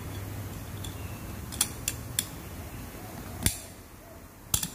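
Sharp metallic clicks and taps of a snap ring being fitted into the groove of an automatic transmission clutch drum, with about half a dozen irregular clicks, two in quick succession near the end.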